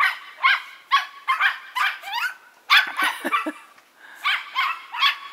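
Small dogs barking in quick, high-pitched yaps, about two a second, with a short pause a little past halfway.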